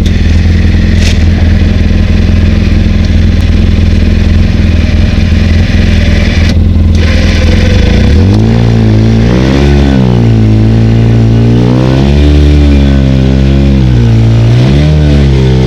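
Side-by-side UTV engine idling steadily, then revved up and down several times from about halfway through. The riders suspect a problem with its CVT drive belt.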